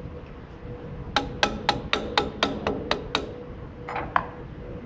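Yellow-headed mallet tapping on the thickness planer's cutterhead while new knives are fitted: a quick run of about nine sharp taps, roughly four a second, then two more near the end.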